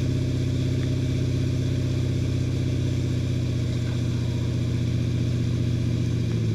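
Inboard engine of a Tige wakesurf boat running steadily at about 10 mph, heavily ballasted and towing a surfer: a deep, even drone, with the rushing hiss of water from the wake behind the stern.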